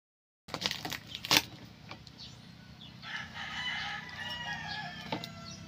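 A rooster crowing once, a long call starting about three seconds in. A few sharp knocks come before it, the loudest about a second in.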